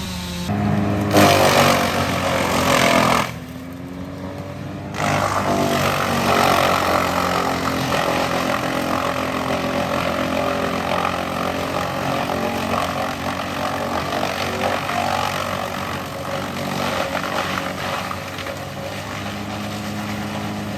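Wood chipper's engine running. It is louder for a couple of seconds near the start, drops back briefly, then runs steadily.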